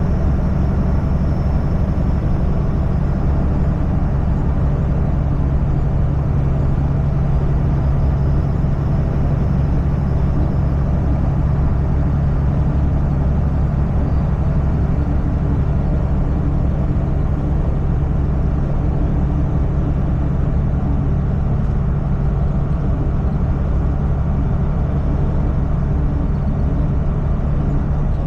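Semi truck's diesel engine and road noise, a steady low drone at a constant cruising speed.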